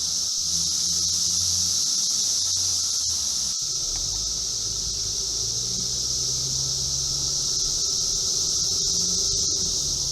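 Dense chorus of Brood X periodical cicadas: a loud, unbroken high-pitched drone from thousands of insects calling at once.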